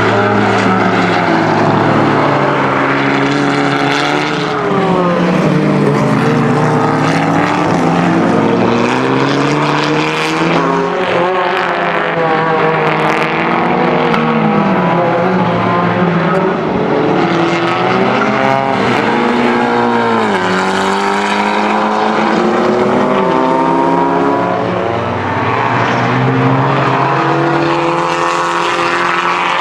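VW Scirocco R race car engine at racing speed, revving up and down through the gears: the pitch climbs, drops sharply at each shift, and falls away under braking before climbing again.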